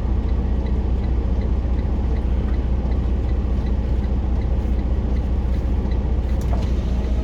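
Heavy truck's diesel engine idling steadily, a strong low hum, with a faint regular ticking about three times a second.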